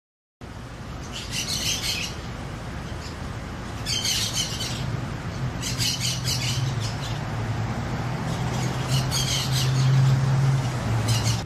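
Feral parrots giving harsh squawking calls in four or five short bouts, over a steady low rumble.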